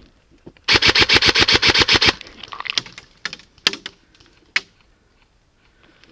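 Airsoft gun firing one fully automatic burst, about a dozen shots a second for about a second and a half, followed by a few scattered single clicks and knocks.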